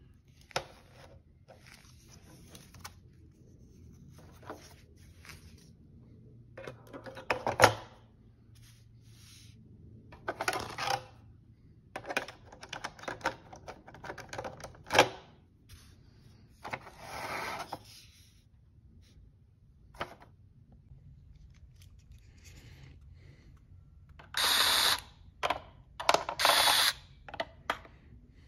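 Clicks, taps and rustles of the plastic parts of a Toyota Prius tail light assembly being handled and fitted back together. Near the end, two short, louder bursts of a power screwdriver driving screws into the housing.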